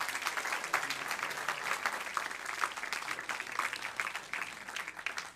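Congregation applauding, many hands clapping at once, thinning out near the end.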